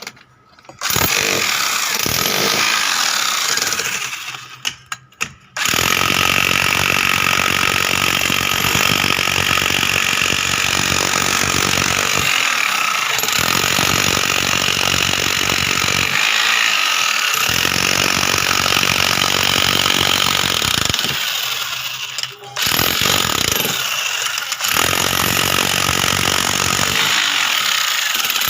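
A power tool running hard with a rapid hammering rattle, in long stretches that stop for a second or so several times.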